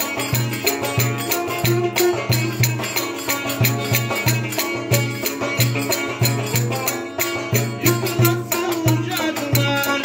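Live Turkish village folk music: a large davul drum beats an even low pulse about three times a second under a gliding melody line, with rattling percussion clicking throughout.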